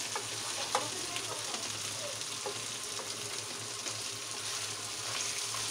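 Crab pieces in a spice masala sizzling in a frying pan while a wooden spatula stirs them, with scattered light scrapes and knocks against the pan. This is the stir-frying stage that works the masala into the crab.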